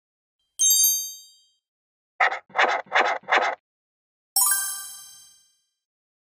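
Logo-intro sound effects: a bright chime that rings away, then four short scratching strokes of a pencil-drawing effect, then a second, fuller chime that rings out for about a second.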